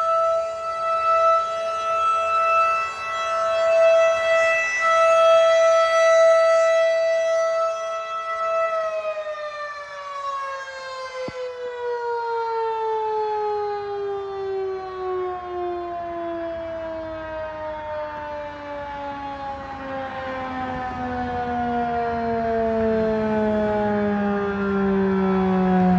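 Federal Signal 2001-SRN rotating outdoor warning siren on its test: it holds a steady tone that swells and fades in loudness as it turns, then about nine seconds in begins winding down, its pitch falling slowly and steadily to a low tone.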